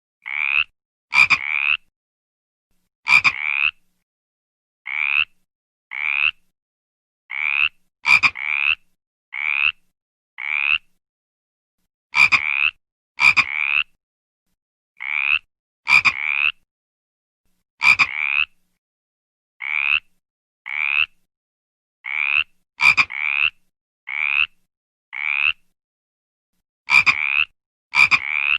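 A frog calling over and over: short croaks, each about half a second long and rising in pitch, repeated roughly once a second at an uneven pace, some beginning with a sharp click.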